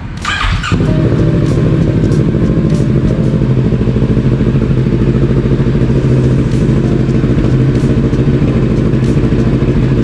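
Kawasaki Ninja 650's parallel-twin engine started on the electric starter: a brief crank of under a second, then it catches and settles into a loud, steady idle. It is the engine's first start after a fresh oil and oil-filter change.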